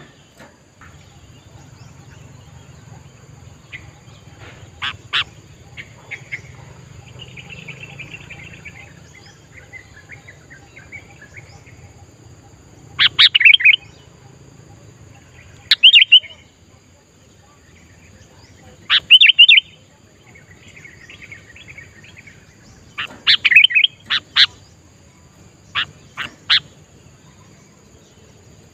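Sooty-headed bulbul calling: short loud bursts of quick notes, about five in the second half, with fainter chirping between them.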